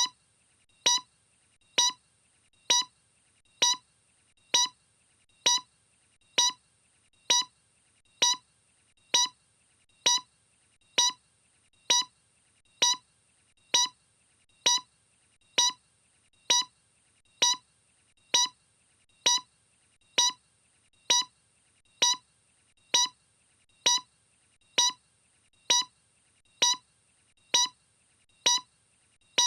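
A short, pitched electronic tick repeating evenly, a little faster than once a second, with near silence between ticks.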